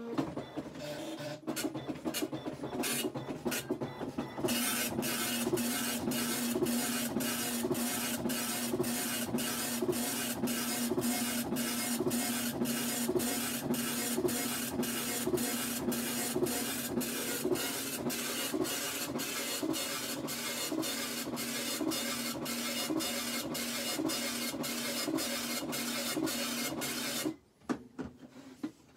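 Apple ImageWriter II dot-matrix printer printing its self-test page. The print head buzzes across the paper line after line, with a short break about twice a second as each line ends. The printing stops abruptly near the end.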